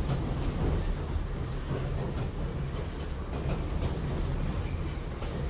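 Running sound heard inside the Kambara Railway's Moha 31 electric railcar: a steady low rumble of wheels and motors, with scattered faint clicks.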